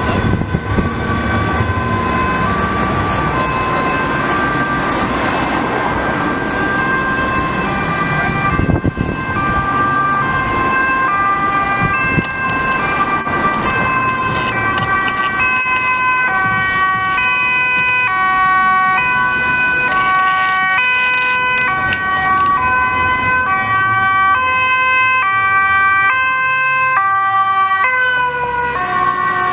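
Two-tone sirens of Dutch emergency vehicles, police cars among them, alternating high and low over city traffic. More sirens at other pitches join and overlap from about halfway, as the vehicles come close and pass near the end.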